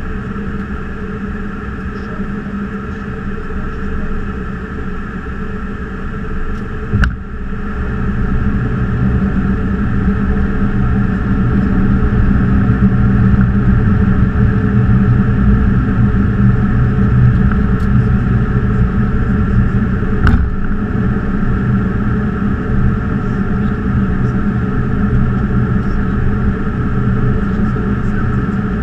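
Steady cockpit noise of an Embraer E190 airliner descending on approach: a rush of air with a constant hum. A sharp click about seven seconds in, after which the noise grows louder and deeper, and another click about twenty seconds in.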